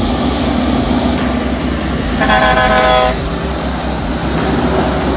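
Kenworth tractor-trailer's diesel engine running as the truck passes close by, with a single horn blast of about a second a little before the middle.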